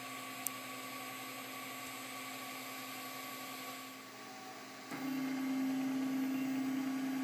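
Makerbot Replicator 3D printer heating up, its fans giving a steady whir. About five seconds in, a louder steady hum from the stepper motors starts as the dual-extruder carriage travels along its rail.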